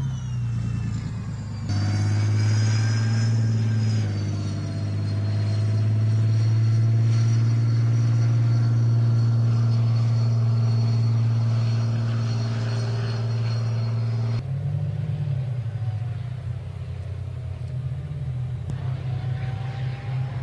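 Tank driving across open ground: a loud, steady deep engine drone with a high whine above it. About 14 seconds in it changes to a rougher, lower rumble.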